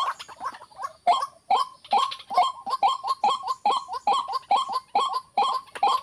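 White-breasted waterhen calling: a fast, unbroken series of short harsh notes, about three a second, each dropping in pitch.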